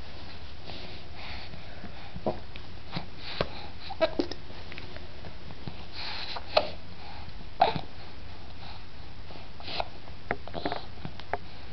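Baby hiccupping: short sharp hics at irregular intervals of a second or so, the loudest about six and a half and seven and a half seconds in, over a steady hiss.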